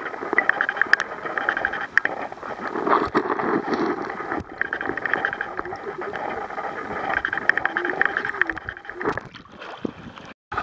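Water sloshing and gurgling, heard through a microphone held underwater in shallow water, with many small crackles and clicks. It cuts out briefly just before the end.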